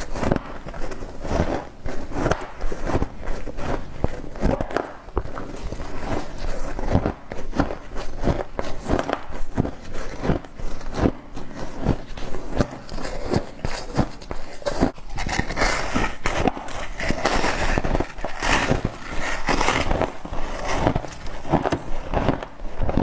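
Frost ice being bitten and chewed: a dense, irregular run of crisp crunches and crackles, turning thicker and more crackly a little past the middle.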